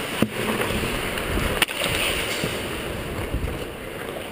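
Ice hockey skates scraping and gliding on the ice, heard as a steady rushing noise. Two sharp clacks stand out, one just after the start and one about a second and a half in.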